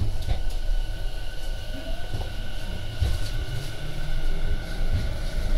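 Tobu 50070-series electric train running, heard from inside the car: a steady low rumble of wheels on rail with a faint steady whine above it.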